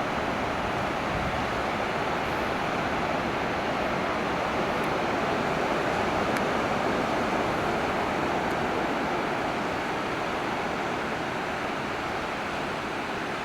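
Ocean surf breaking and washing onto the beach: a steady, unbroken rush of water noise.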